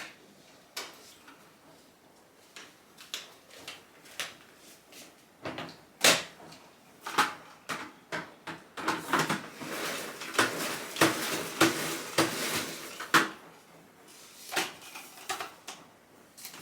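A run of light clicks and knocks from household objects being handled, scattered at first and coming thick and fast in the middle.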